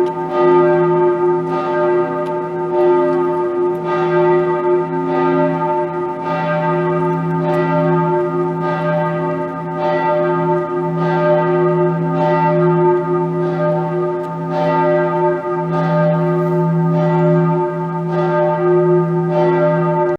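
A church bell ringing, its clapper striking in a steady rhythm a little faster than once a second, with the bell's tones sustaining between strikes.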